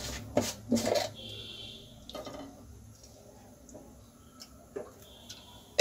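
Refined cooking oil poured from a glass jar into a nonstick pan, with a few light clicks and knocks in the first two seconds.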